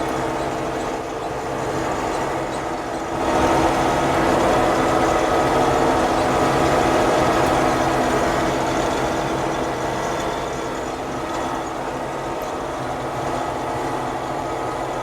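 Combine harvester running while harvesting wheat: a steady engine drone with the rumble of the threshing machinery, getting louder about three seconds in.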